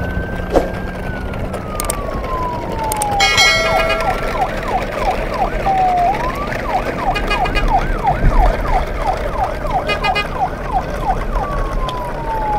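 Emergency-vehicle siren. A slow wail rises and then falls, switches about three seconds in to a fast yelp of up-and-down sweeps at about three a second, and goes back to a slow falling wail near the end.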